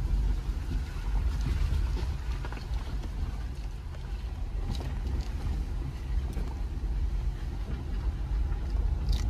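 Jeep Gladiator driving on a dirt and gravel road: a steady low rumble of engine and tyres, with a few light ticks near the middle and near the end.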